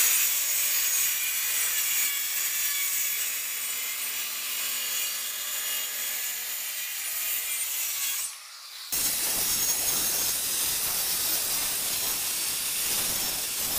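Handheld circular saw cutting through a sheet of plywood, a steady high-pitched blade-through-wood noise. It breaks off sharply for a moment about eight seconds in, then carries on.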